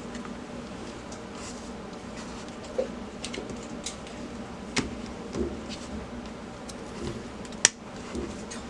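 Small plastic clicks and knocks as the two-piece laser sight shell is handled and pressed onto a compact pistol's frame, about eight of them spread irregularly, the sharpest near the end.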